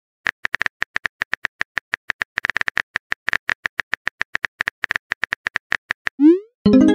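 Phone keyboard typing sound effect: a fast, uneven run of short clicks, one per key tap, as a text message is typed. Near the end a short rising swoosh and a chime as the message is sent.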